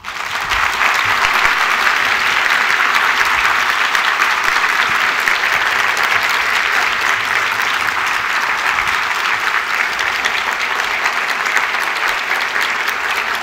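Audience applauding: many people clapping at once, starting abruptly and keeping up a steady, loud ovation that eases slightly near the end.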